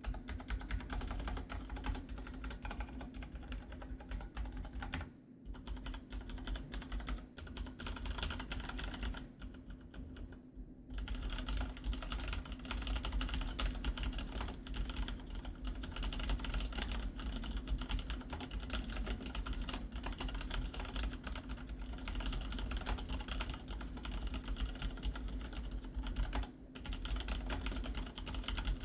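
Filco Majestouch 2 Ninja mechanical keyboard with Cherry MX Red linear switches being typed on fast and continuously, a steady stream of keystrokes with short pauses about five, ten and twenty-six seconds in.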